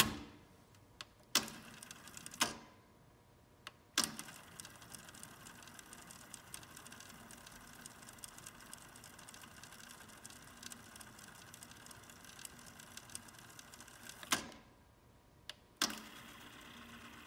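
Pioneer CT-F1250 cassette deck transport: several sharp clicks and clunks from its buttons and mechanism, then the tape fast-winding with a faint steady whir for about ten seconds. Another clunk stops it, a brief silence, then a clunk and the faint winding starts again near the end.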